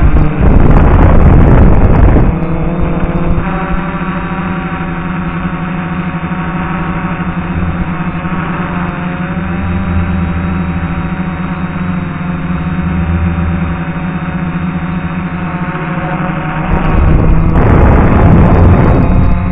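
DJI F450 quadcopter's brushless motors and propellers humming steadily in flight, heard from the onboard camera, the pitch drifting slightly. The sound is louder and rougher for the first two seconds and again near the end.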